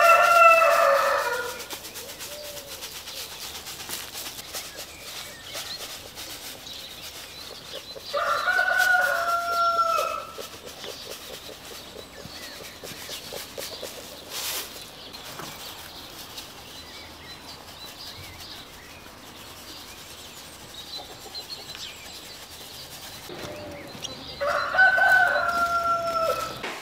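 Rooster crowing three times: once at the start, again about eight seconds in, and once more near the end, each crow lasting about two seconds.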